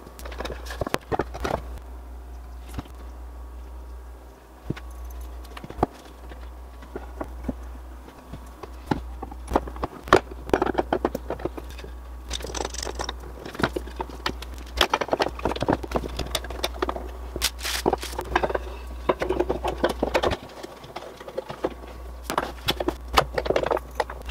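Walnut and coffeetree cutting-board strips and metal pipe clamps knocking and clattering as they are set and tightened in a glue-up: many irregular clicks, taps and knocks, busier in the second half.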